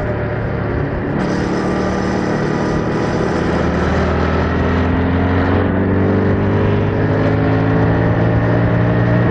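Yamaha MT-07's parallel-twin engine through its stock exhaust, pulling under steady load with the revs climbing slowly and evenly.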